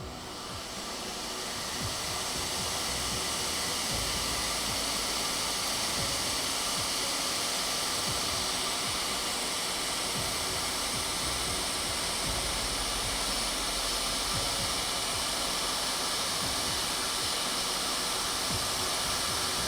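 Hot air rework station blowing a steady hiss of air, rising to full flow over the first couple of seconds, as a small audio IC is soldered onto a laptop logic board.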